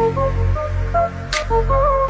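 Background music: a melody of held notes over a deep bass line, with a sharp percussive hit about a second and a half in.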